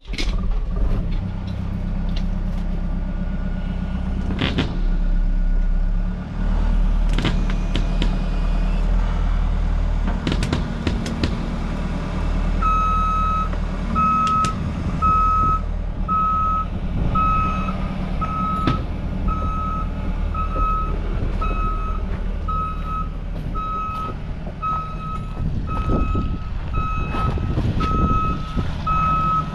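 Heavy diesel machine running with scattered metal clanks, then its back-up alarm begins beeping steadily, about one beep a second, as it reverses, starting a little under halfway through.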